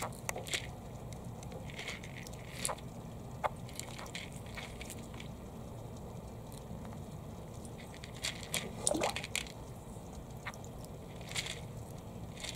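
Japanese pond turtles biting and crunching food pellets: scattered short crunchy clicks, with a quick cluster of them about nine seconds in, over a steady low background noise.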